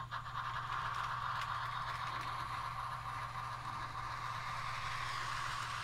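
HO-scale Bachmann model of the Central Pacific Jupiter steam locomotive running in reverse on its track. It starts moving at the outset and keeps up a steady whir of motor and wheels.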